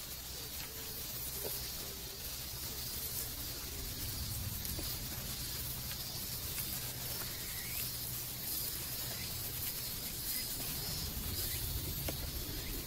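Steady outdoor background noise: a low, uneven rumble with an even high hiss over it, and a few faint ticks.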